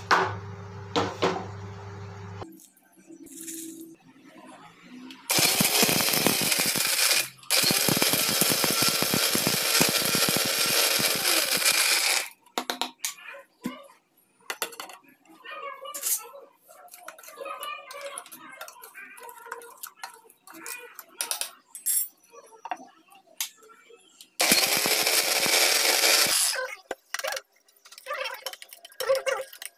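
Electric mixer grinder running in pulses as it grinds dry-roasted whole spices into garam masala powder in a stainless steel jar. It runs in a short burst, then for about five seconds, then in another short burst well past the middle. Between runs a spoon clinks and scrapes against the steel jar.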